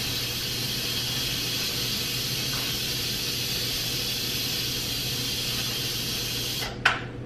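Instant Pot electric pressure cooker venting pressurised steam through its release valve, held open with a utensil, in a steady loud hiss: the pressure is being released after cooking. The hiss cuts off suddenly near the end, followed by a sharp click.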